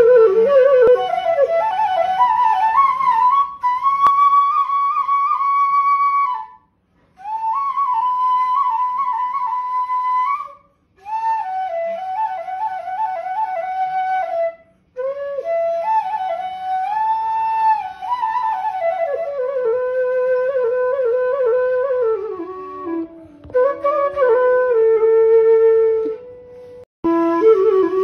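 Background music: a solo flute playing a slow melody in phrases with short breaks between them, its notes sliding and wavering. The line climbs early on, then works its way down toward the end.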